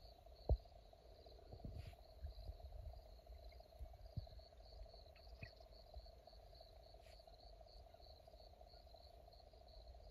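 Faint chorus of insects in grassland at dusk: a steady drone under a high chirp that pulses evenly a few times a second. A single low thump comes about half a second in.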